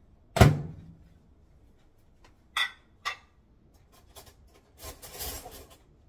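A microwave oven door shut with a thump about half a second in, then two sharp clicks a little later and a short clatter of dishes near the end.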